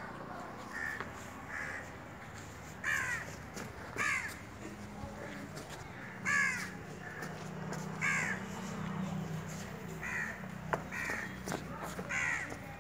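Crows cawing: a series of short, harsh calls, each falling in pitch, repeating every second or two, over a low steady hum.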